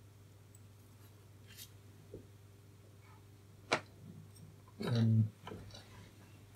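Light clicks and taps of a printed circuit board and its resistor leads being handled and set down on a paper towel, with one sharp click a little past the middle. A brief voiced murmur near the end, over a faint steady low hum.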